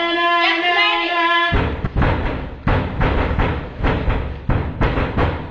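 A pitched melody of held and gliding notes cuts off abruptly about a second and a half in. Loud, noisy sound with repeated heavy thuds, roughly two a second, takes over.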